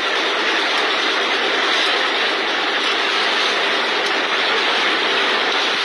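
Small wooden fishing boat's engine running steadily, a constant drone with the rush of wind and water around the hull.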